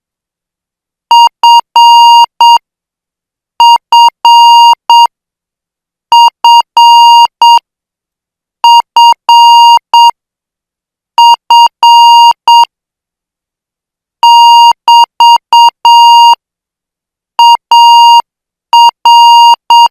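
Morse code practice tone at 8 words per minute: a single beep pitched near 1 kHz keyed in short and long tones, sending about seven characters, each followed by a pause of about a second.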